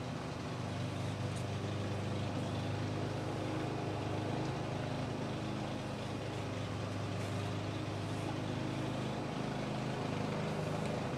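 A heavy motor vehicle's engine running with a steady low rumble.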